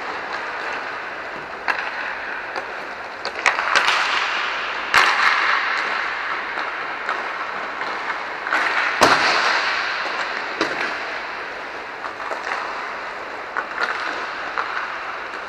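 Inline hockey play in a large echoing dome. Skate wheels make a steady rolling hiss on the rink floor, broken by several sharp cracks of sticks and pucks striking, each with a long echoing tail. The loudest crack comes about nine seconds in.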